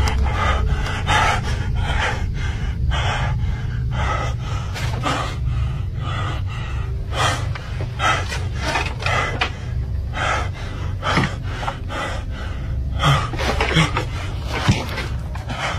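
A man breathing hard and fast close to the microphone, in quick, ragged gasps about three a second, over a low steady hum. A few soft knocks come near the end.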